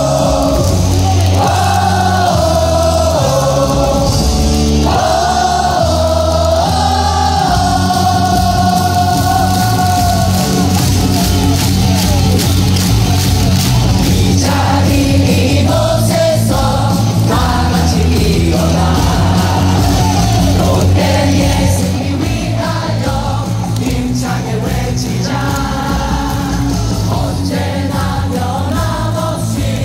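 A stadium crowd of baseball fans sings a cheer song together over loud PA music with a heavy bass line and a steady beat.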